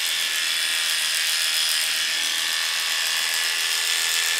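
Cordless electric dog clippers with a number 10 blade running with a steady buzz while shaving the hair on a poodle's muzzle.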